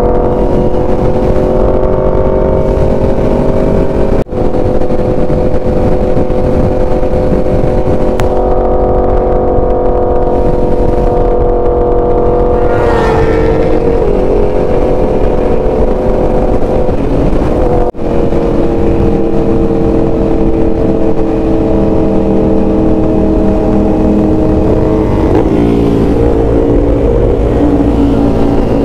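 Sport motorcycle engine running at a steady cruise under heavy wind rush, with a brief rising whine about halfway through and the engine note falling lower near the end as the bike slows.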